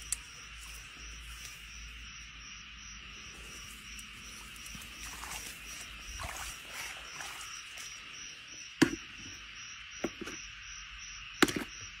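Steady chirring chorus of insects with a faint regular pulsing. Near the end come three sharp clacks, the loudest sounds, as long metal tongs grip and handle a live eel.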